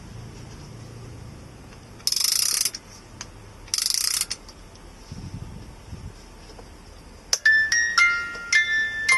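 Wooden wind-up music box (YP1520) being wound at its base: two short bursts of fast ratchet clicking about 2 and 4 seconds in. About 7 seconds in its steel comb starts playing the tune, a run of plucked, ringing notes at several pitches.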